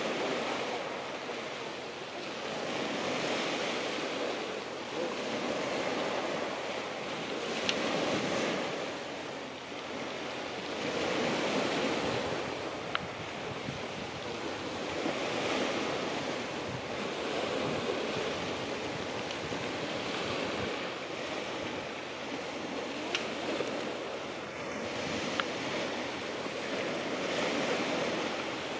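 Sea waves breaking and washing on the shore, swelling and falling back every few seconds, with wind buffeting the microphone. A few sharp clicks sound through it.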